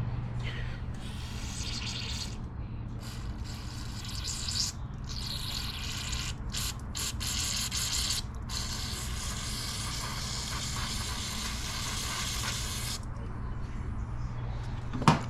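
A spray hissing in several bursts with short breaks, the last and longest stopping suddenly near the end, over a steady low hum.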